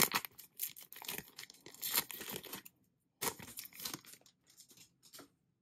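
Foil wrapper of an Upper Deck Marvel Annual trading card pack being torn open and crinkled by hand, in irregular bursts, loudest at the start and petering out into a few faint crackles about five seconds in.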